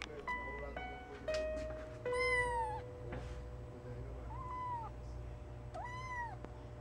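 Tabby kitten meowing three times, each a high, arching call; the first, about two seconds in, is the longest and loudest.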